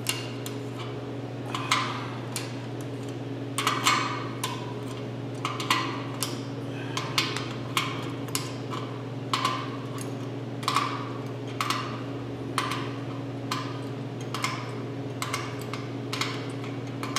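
Sharp metal clicks and clinks, irregular, about one or two a second, from a wrench and the fittings on an air-compressor tank as the pressure switch is being unscrewed. A steady low hum runs underneath.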